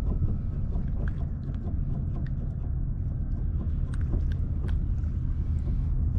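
Steady low wind rumble buffeting the microphone, with a few faint clicks and taps as a hook is worked out of a fish's mouth by hand.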